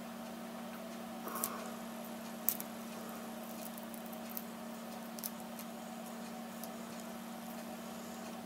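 Faint, scattered clicks and scrapes of a plastic pry tool working under the iPad 2's glued digitizer glass, over a steady low hum.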